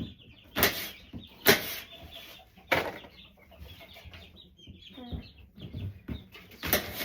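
Knife chopping fruit and vegetables on a cutting board: several sharp chops, the loudest about a second apart, with baby chicks cheeping in the background.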